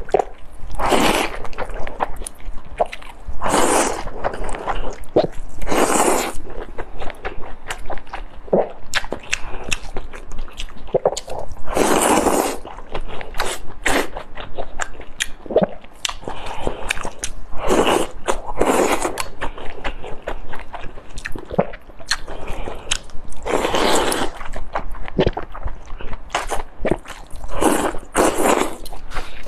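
Mukbang eating of fatty beef slices in chili broth: loud wet slurps of a second or so every few seconds as mouthfuls are sucked in from the chopsticks, with quick smacking and chewing clicks in between.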